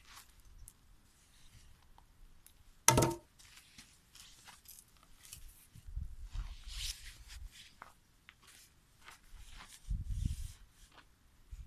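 Scattered knocks, clicks and rustles of handling, with one sharp clank about three seconds in.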